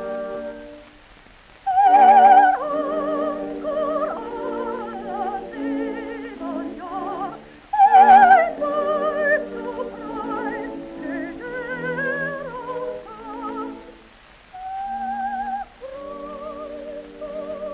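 Operatic soprano with a wide vibrato singing with orchestral accompaniment, in an old recording with a narrow, dull-sounding frequency range. After a short dip she comes in loudly on a high note about two seconds in, and again about eight seconds in.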